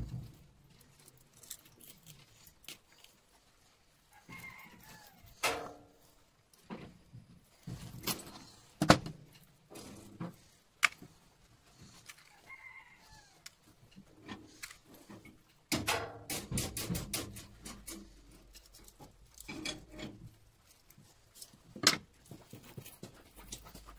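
Scattered clicks, taps and scrapes of a screwdriver and pliers on a small electric motor's rotor as the copper winding wire is picked out, the sharpest clicks about nine seconds in and near the end. A hen clucks briefly in the background a couple of times.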